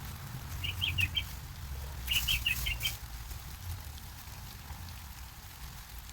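A songbird chirping: two quick runs of short, high notes, the second a little over a second after the first, over a low steady rumble.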